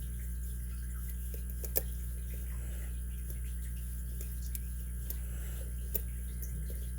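Faint light clicks of a lock pick working the pins of a Yale pin-tumbler lock cylinder, with two sharper ticks about two and six seconds in, over a steady low hum.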